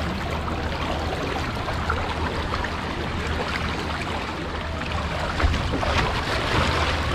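Water rushing and splashing down the flume of a speed water slide in a steady wash of noise, with a brief low thump about five and a half seconds in.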